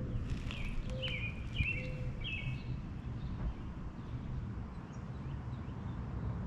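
Several short, high bird chirps in the first couple of seconds over a steady low outdoor rumble, with a few faint low notes about a second apart early on.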